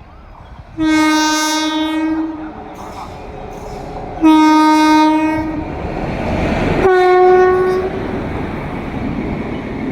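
Indian Railways train horn sounding three long blasts, the third slightly higher in pitch and shorter, over the rumble of the moving train.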